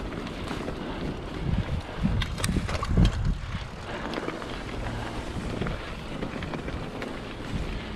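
Wind buffeting the microphone over the rumble of a mountain bike riding a dirt trail, with a cluster of sharp knocks and rattles from bumps about two to three seconds in.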